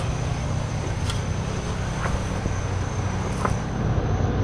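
Skid steer engine running steadily, with a few faint clicks over it.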